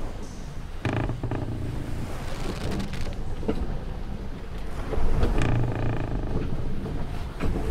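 Timbers of a wooden sailing ship creaking over a steady wash of sea and wind. There are two longer creaks, about a second in and around five and a half seconds, and a few short knocks in between.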